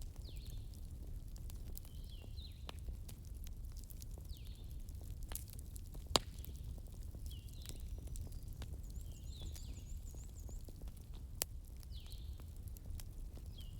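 Wood fire crackling over a low steady rumble, with a sharp pop about six seconds in and another later on. Over it, short falling chirps from a calling animal repeat every couple of seconds, with a brief run of faint high chirps partway through.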